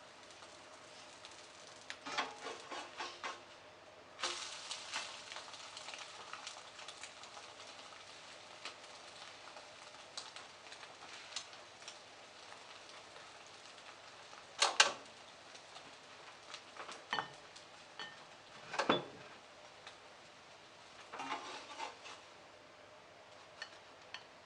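Frozen meat-wrapped cheese rolls heating in a frying pan: a faint steady sizzle, with scattered short clatters of a utensil or lid against the pan, the loudest about a third of the way through.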